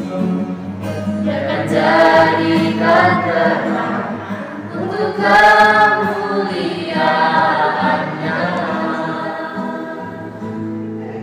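A youth choir of teenage girls and boys singing a hymn together, with long held notes, growing quieter near the end.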